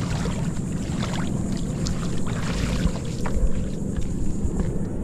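Plastic sit-on-top kayak grounding on a sandy beach and a person stepping out onto the wet sand: a few light knocks and scrapes between about two and three and a half seconds in, over a steady low rumble.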